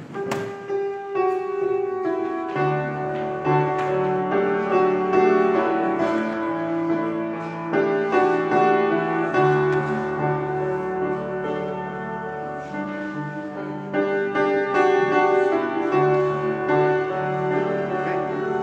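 Slow instrumental keyboard music of long held chords, starting abruptly, with a bass line coming in about two and a half seconds in.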